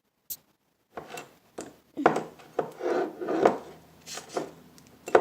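Hands working and pulling at a sticky mass of layered slime in a container. From about a second in there is an irregular run of crackling, rubbing noises with sharp sticky clicks.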